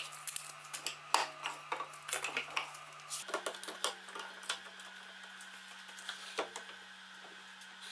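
Light clicks and knocks of hand work at a switched-off table saw: a steel tape measure against the blade and fence, then a wide board being moved and set on the saw table. The clicks are busiest in the first three seconds and thin out after, over a faint steady hum.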